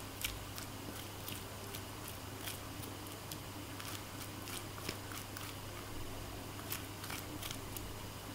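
Metal spoon scraping seeds and stringy pulp out of a raw pumpkin, with irregular wet crackles and clicks as the seeds tear loose and drop onto a paper towel.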